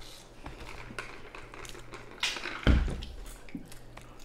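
Light clicks, taps and rustles of food containers and utensils at a meal table, with one loud thump on the tabletop about two and a half seconds in.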